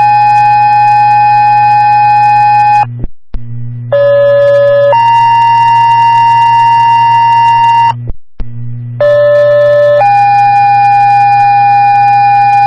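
Two-tone sequential paging tones from a fire and EMS dispatch radio channel, heard over a scanner: one page is ending on its long second tone, then two more pages follow, each a short steady tone of about a second stepping to a different long tone of about three seconds, with brief breaks between pages. A low steady hum runs under the tones. They are the alert tones that open a dispatch to the units being called out.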